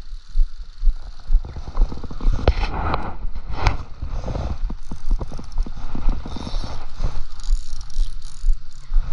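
A spinning rod and reel being handled. Rhythmic low thumps come about two or three a second at first, then from about two seconds in a quick run of sharp clicks and knocks as a hand works the reel's spool and handle.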